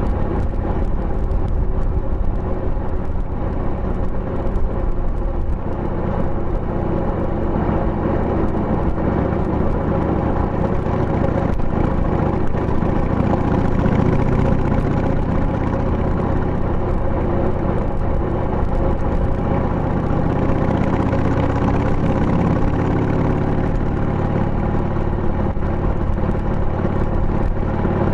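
2000 Harley-Davidson Sportster 883's air-cooled Evolution V-twin running under way, heard through tapered mufflers with the baffles fitted. The exhaust note holds steady, with small shifts in revs past the middle.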